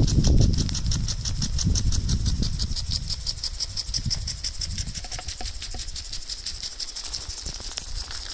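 Brass impact sprinklers running: the swinging arm knocks through the water jet in a rapid, even ticking over the hiss of spray. A low rumble at the start fades within the first couple of seconds.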